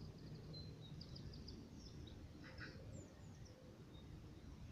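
Faint small birds chirping: short high calls and a few quick falling notes scattered through, over a low steady background rumble.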